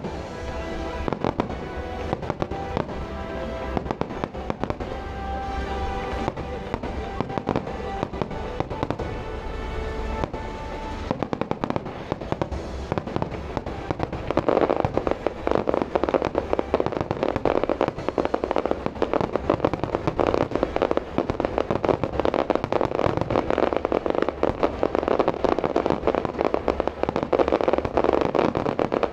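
Aerial fireworks display: a rapid, unbroken run of shell bursts and bangs, which becomes much denser and louder about halfway through. Music plays alongside for roughly the first third.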